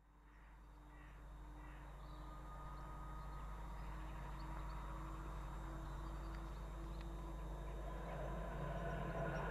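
Diesel locomotive, Class 70 No. 70010, approaching from a distance: a steady engine drone that grows louder throughout.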